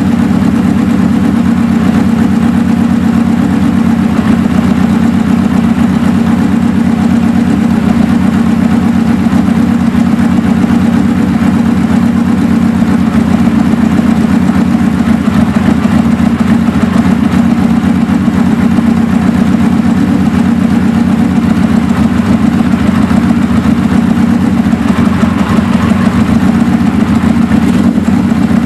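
Suzuki GS550 air-cooled inline-four engine idling steadily, with a Colortune glass spark plug fitted in one cylinder while its idle mixture is being set.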